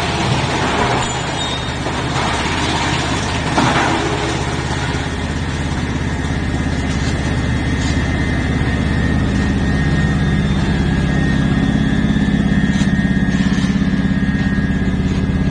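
Industrial wood chipper running and chipping wood, with crackling and a sharp crack about three and a half seconds in. The machine then settles into a steady running hum with a thin high whine.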